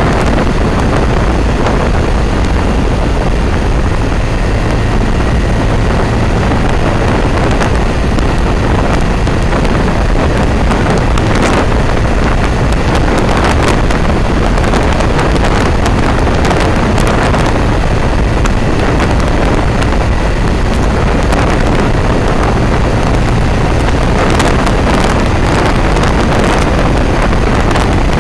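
Steady rush of wind on the microphone of a camera riding on a moving motorcycle, with engine and road noise beneath it and short buffets here and there.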